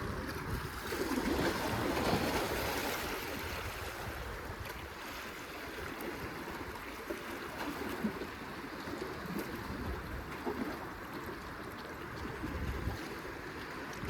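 Wind buffeting the microphone, with water moving and a few small clicks.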